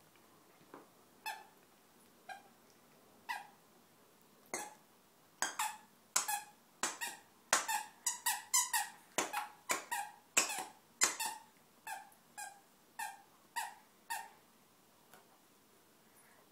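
A plush squeaky toy squeaking again and again as a dog bites and chews it. A few scattered squeaks come first, then a quick run of them in the middle, spacing out again toward the end.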